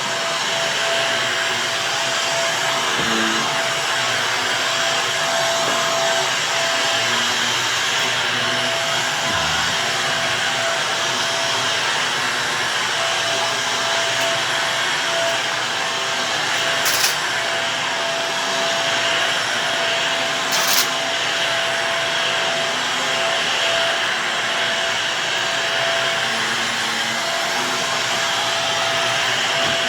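Shark vacuum cleaner running steadily over carpet, its motor holding a steady whine. Two brief sharp clicks come about halfway through.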